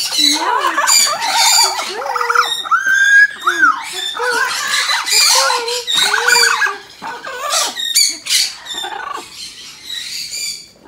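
Parrot squawking and calling over and over, a jumble of screeches that glide up and down and thin out near the end.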